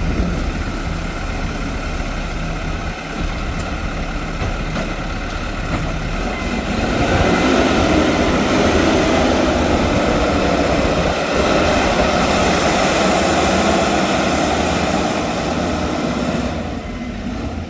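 Diesel engine of heavy earthmoving machinery running steadily under load, growing louder about seven seconds in and easing off shortly before the end.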